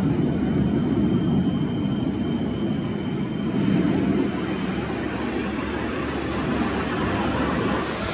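MiG-29 fighter jets' twin RD-33 turbofan engines roaring steadily, with a faint high whistle that runs for a couple of seconds.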